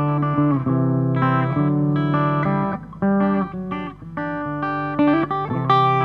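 Background music led by guitar, playing a melody over low bass notes.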